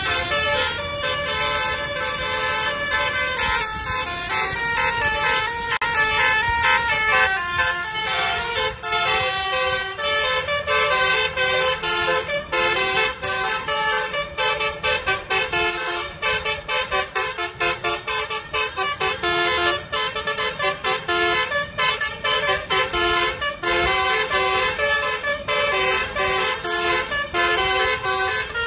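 Telolet Basuri musical horns of two tour buses sounding together in a duet, playing fast melodies of stepped notes over road noise. From about ten seconds in the notes come short and choppy.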